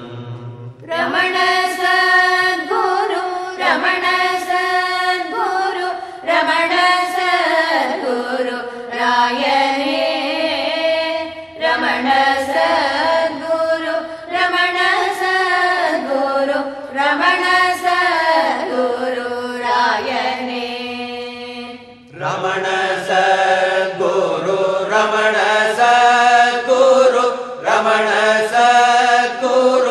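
Devotional chant-like song in Carnatic style: a voice singing long, held, gliding phrases, with short breaths between them about 8, 11 and 22 seconds in.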